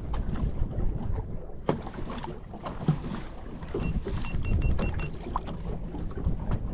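Honda 90 four-stroke outboard idling as it warms up, with scattered knocks. About two-thirds of the way through comes a quick run of six short electronic beeps.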